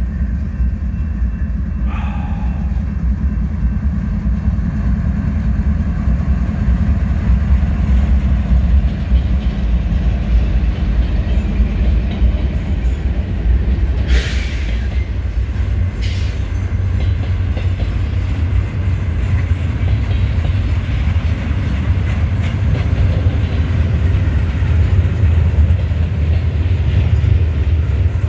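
Freight train passing close by: diesel locomotives rumbling, then double-stack intermodal container cars rolling past with a steady, heavy rumble of wheels on rail. There is a brief hiss about halfway through.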